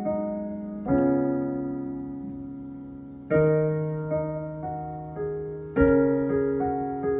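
Electronic keyboard with a piano voice playing slow, sustained chords: a new chord about every two and a half seconds, each left to die away, with a few single notes added in between.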